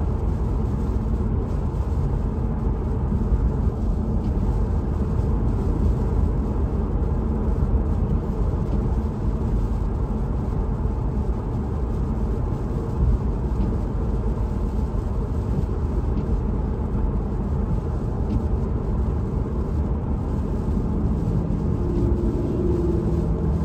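Steady road noise heard inside a car cabin at freeway speed: a low rumble of tyres and engine on a wet road.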